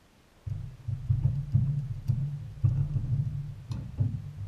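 Irregular heavy thumps and knocks on a wooden dock with a boomy low resonance, starting about half a second in: a freshly landed zander flopping on the boards and the angler moving about.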